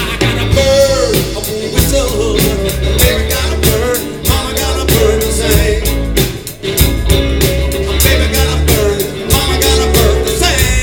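Live blues band playing a song: a steady drum beat and bass line under a wavering sung or lead melody.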